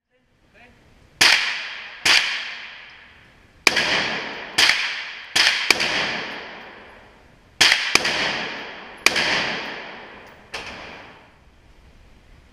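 AR-15 rifle fired in single shots, about ten in a slow, irregular string, each crack followed by a long echo off the walls of an indoor range.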